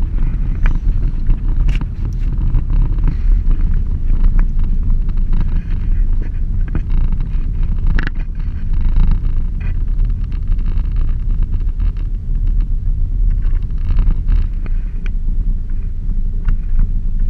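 Loud low rumble inside a moving vehicle: engine, tyre and wind noise, with scattered small rattles and knocks throughout.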